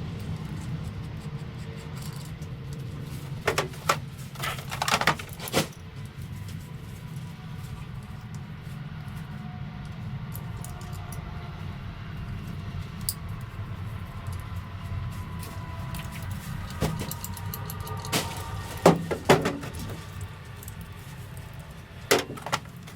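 Scattered clicks and clanks of tools and parts being handled, in a few short clusters, over a steady low hum.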